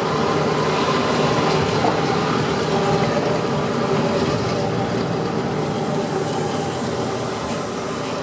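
A 9200 truck's MWM X12 diesel engine running steadily under way, its exhaust sounding louder and deeper because the 2-metre tailpipe extension has been removed.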